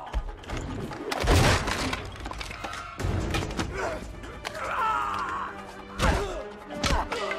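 Film fight-scene soundtrack: dramatic music over a string of heavy blows, thuds and a crash, the loudest about a second in and again about six seconds in.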